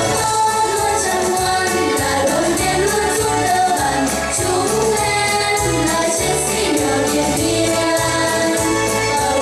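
A children's vocal group of girls singing together in Vietnamese over backing music with a steady beat.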